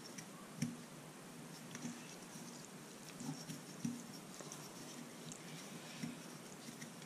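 Faint handling noise as hands work plumber's putty around a stainless steel sink strainer body, with a few light taps and scrapes of the metal part scattered through.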